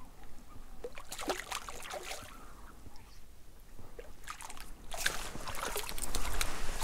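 A hooked grayling splashing and thrashing at the surface of shallow water, in a burst of splashes about a second in and again from about five seconds, growing louder near the end.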